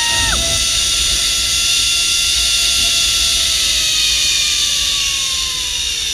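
Zip-line trolley pulleys running fast along the steel cable: a loud whirring hiss with a thin whine that slowly drops in pitch from about four seconds in as the rider slows. Wind rumbles on the microphone.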